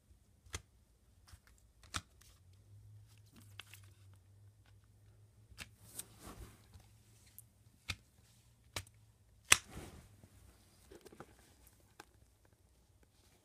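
Scattered clicks and taps with brief rustling as a presentation box and its packaging are handled, with one sharper knock about halfway through.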